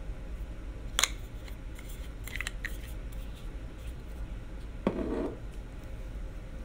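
Handling noise of small makeup items: a sharp click about a second in, a few lighter clicks soon after, and a short dull knock about five seconds in, over a steady low hum.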